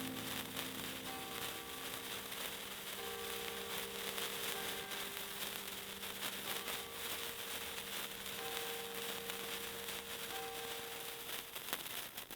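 Soft background music of held notes over a steady crackling hiss, cutting off abruptly near the end.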